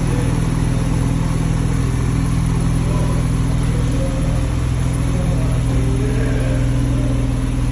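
Car engine running loudly and steadily, its pitch holding even with no rise or fall.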